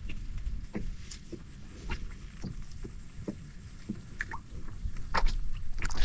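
Soft, irregular clicks and knocks of a small boat and fishing pole being handled, over a low steady rumble.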